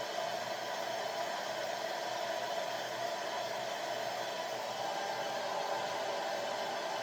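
Hand-held hair dryer running steadily, a constant blowing whoosh with a low hum in it.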